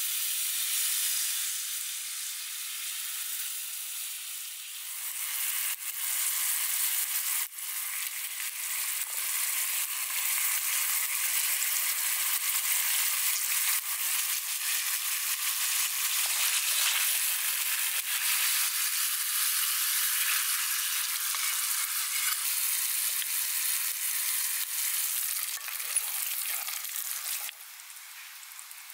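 Tomato and merguez sausage sauce sizzling steadily in a pan over a wood fire, dropping quieter near the end.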